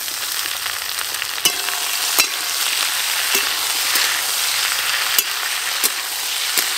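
Potato, brinjal and capsicum sizzling in hot oil in a metal wok as chopped tomato goes in and a spatula stirs, scraping and clicking against the wok several times.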